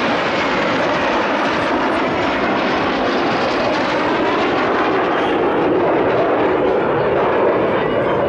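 Jet noise from a formation of Alpha Jet trainers passing overhead, their twin turbofan engines making a steady rushing sound that grows slightly louder past the middle.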